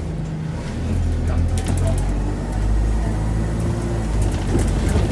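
Dennis Dart SLF bus's diesel engine pulling, louder from about a second in, with its turbocharger whistling. A few light clicks come a couple of seconds in.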